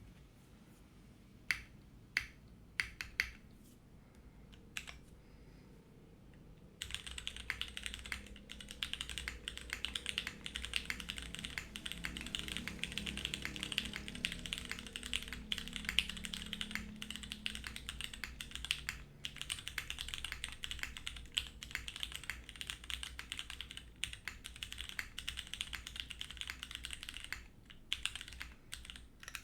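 Mechanical keyboard with Cherry MX Grey switches, a PEI plate and DCS-profile keycaps being typed on. At first there are a few separate key presses, then from about seven seconds in there is fast, continuous typing.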